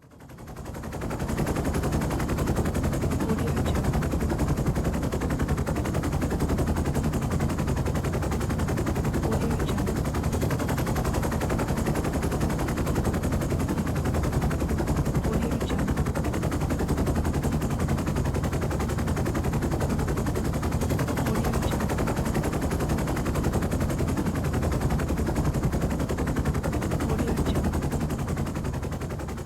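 Helicopter rotor blades chopping in a rapid, steady beat over the engine's heavy low rumble. It fades in during the first second or two and fades out near the end.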